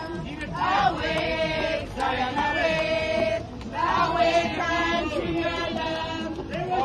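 A group of voices singing a gospel song together, sustained, held notes.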